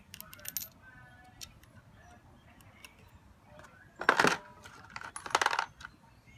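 Small metal parts clinking and rattling: a nut and washer being handled on a starter motor's terminal stud. There are a few light ticks in the first second, then two louder metallic rattles about four and five seconds in.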